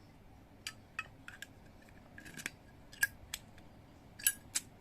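Zippo windproof lighter being handled: a series of sharp metal clicks and clinks, about ten, at irregular intervals, from the steel case, lid and insert knocking together.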